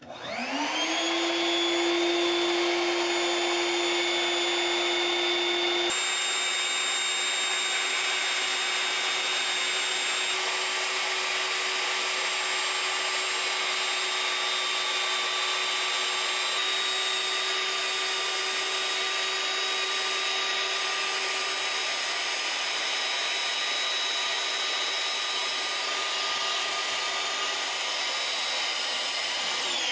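An electric blower motor, like a shop vacuum's, spins up quickly, runs steadily with a high whine and a rush of air, and spins down near the end.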